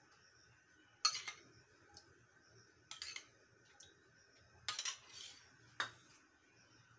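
Four light metallic clinks and taps a second or two apart from a small steel bowl and a non-stick kadhai as mustard oil is poured into the pan.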